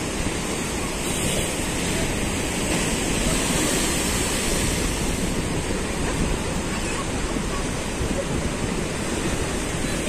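Rough sea, with high waves breaking and washing over a breakwater of stone blocks in a steady, continuous rush of surf.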